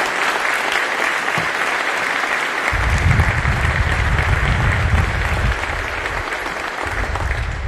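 Audience applauding steadily. A low rumble joins in about three seconds in and comes and goes.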